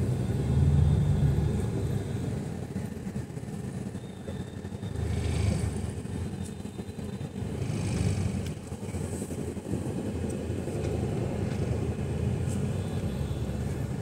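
Road and engine noise of a moving car on a highway: a steady low rumble that swells louder a few times.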